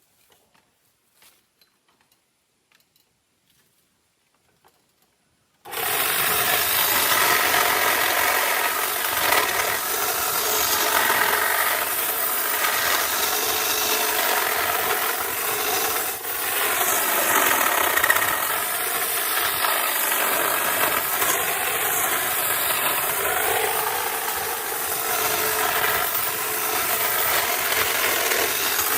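A power saw starts suddenly about six seconds in and runs steadily, its pitch wavering as it cuts through tree branches.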